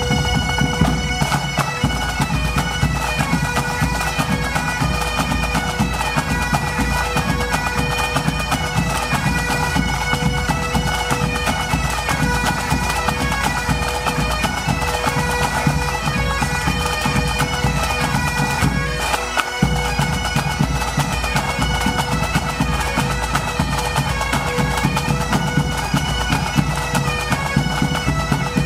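Highland pipe band playing: massed bagpipes sounding a tune over a steady drone, with snare, tenor and bass drums beating underneath.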